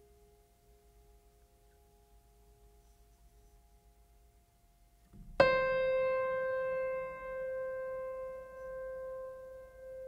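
Ambient background music: a single piano note struck about five seconds in, ringing on and slowly fading with a pulsing, wavering decay. Before it, only the faint tail of an earlier note.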